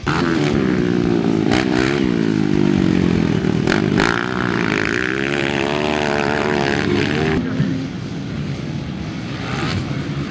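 Motocross dirt bike engines revving, their pitch climbing and falling again and again, then quieter after about seven seconds.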